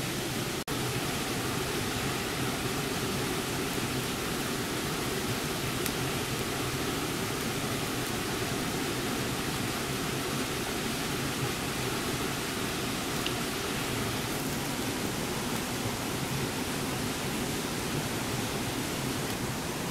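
Steady, even rushing hiss with no distinct events, briefly cut off for an instant less than a second in.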